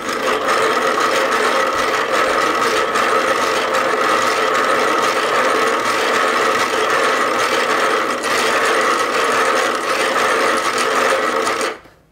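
Hand-cranked 3D-printed plastic gear train and cams turning at a steady speed. The gears and the laser rubbing on the cams make a continuous plastic whirring and grinding, which stops suddenly near the end.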